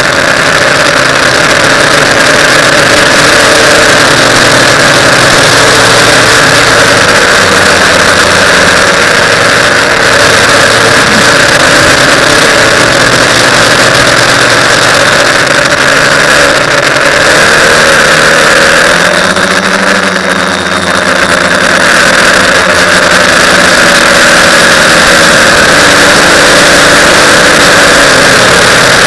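TBS Discovery quadcopter's electric motors and propellers running loudly and steadily in flight. Around twenty seconds in the pitch dips and then rises again as the motor speed changes.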